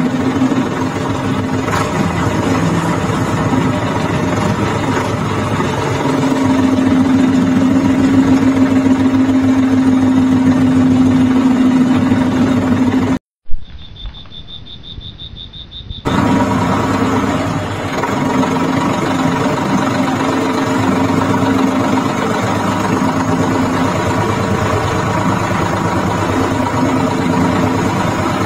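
Engine running steadily. It cuts off abruptly about halfway, leaving a click and a thin high whine for a couple of seconds, then the engine sound resumes.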